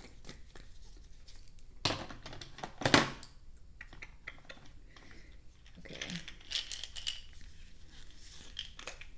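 Plastic pill bottles being handled and clattering against each other and a plastic tub. There are two sharp knocks about two and three seconds in, the second the loudest, then lighter clicks and rattling a few seconds later.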